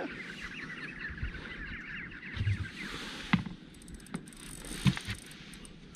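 Spinning reel running with a fast, ratchety clicking while a hooked bream is fought on a bent rod, fading after about three seconds. A few short knocks follow in the second half.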